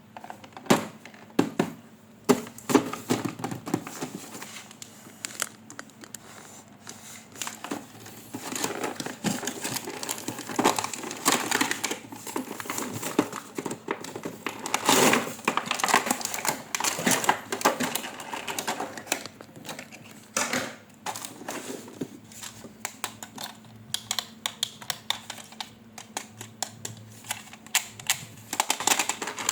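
Unboxing a toy: plastic and cardboard packaging crinkling and rustling in the hands, with irregular sharp clicks and taps, busiest in the middle.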